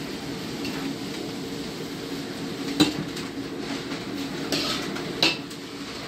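A metal spatula scrapes and knocks against a large metal wok as chowmein noodles are tossed and mixed. There are two sharp clanks, about three seconds in and near the end, over a steady low hum.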